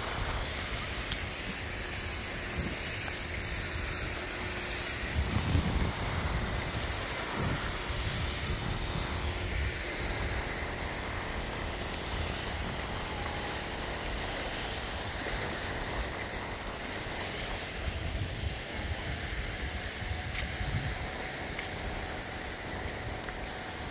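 Steady outdoor noise: a continuous hiss with an uneven low rumble beneath it, briefly louder about five seconds in.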